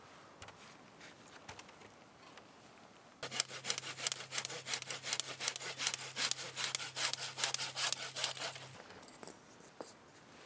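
Hand pruning saw cutting through a woody branch, with rapid back-and-forth strokes. The sawing starts about three seconds in, runs for about five and a half seconds, then stops.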